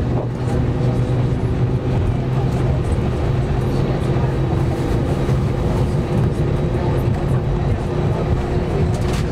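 Airbus A320's jet engines running at low power, heard inside the cabin as a steady drone with a constant low hum.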